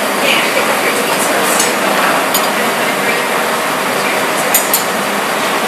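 Steady roar of a glass hot shop's gas-fired glory hole and furnace, with a few sharp clinks of metal tools near the glassblower's bench.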